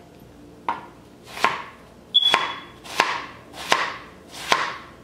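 Kitchen knife slicing half a red onion lengthwise: six strokes about three-quarters of a second apart, each a short swish through the onion ending in a sharp tap of the blade on the board.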